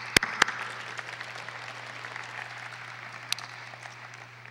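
Audience applauding, fading out over about four seconds.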